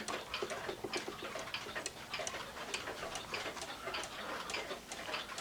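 Small one-day (30-hour) cuckoo clock ticking: quick, even ticks from its escapement.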